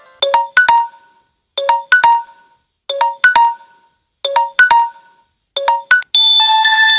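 Samsung Galaxy S7 ringtone: a short motif of three or four bright, mallet-like notes, repeating five times about 1.3 seconds apart. About six seconds in, a different ringtone starts with steady, sustained chime-like tones.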